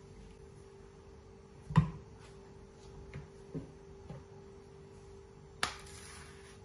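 A glass blender jar set down on a countertop with a sharp knock about two seconds in, followed by a few lighter taps and clinks. About a second of hiss starts suddenly near the end, all over a faint steady hum.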